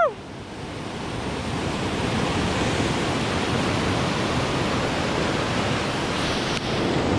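Ocean surf breaking and washing over rocks, a steady rushing wash of white water that swells up over the first two seconds.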